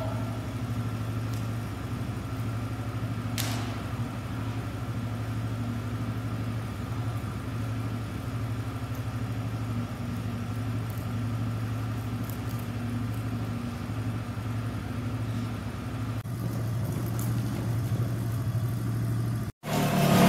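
A steady low mechanical hum with a thin high whine above it. It changes character about 16 seconds in and drops out briefly near the end.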